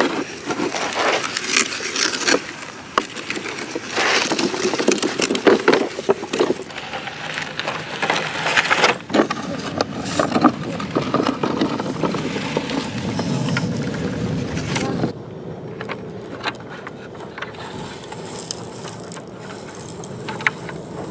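Scraping, rustling and clicking of plastic toy construction trucks being handled and pushed through dirt and sand. It is busiest for the first fifteen seconds, then turns quieter with scattered clicks.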